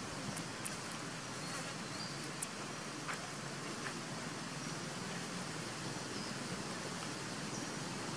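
Steady buzzing hum of insects outdoors, with a few faint clicks.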